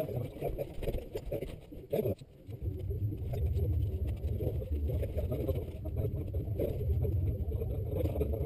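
Cessna 172's piston engine and propeller running, heard inside the cabin as a steady low drone. After a brief dip about two seconds in, it steps up a little and holds steady.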